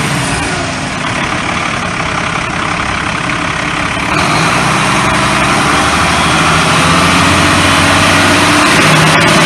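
Cummins 8.3 inline-six turbo diesel idling steadily, heard up close in the engine bay, sold as a good running engine. It gets louder about four seconds in.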